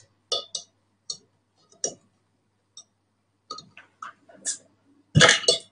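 Metal bottle opener in the base of a stainless steel mug working against the crown cap of a glass beer bottle: a string of small irregular clicks and scrapes, then a louder pop near the end as the cap comes off.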